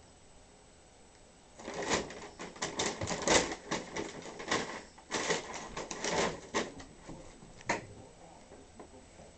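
A bag rustling and crinkling as a cat scrambles around inside it: a dense run of crackles starts about one and a half seconds in and dies away to a few faint ticks near the end.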